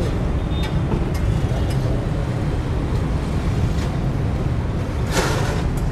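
Steady low rumble of road traffic, with a short hiss about five seconds in.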